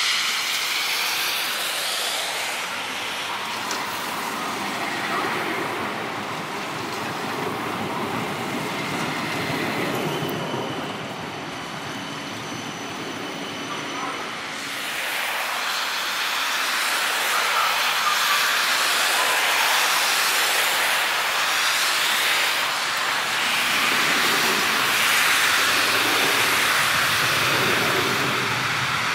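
CAF Urbos 3 electric tram running on its rails past close by: continuous rolling and rushing noise. A quieter stretch in the middle carries a steady high whine, then the noise grows louder again for the rest of the pass.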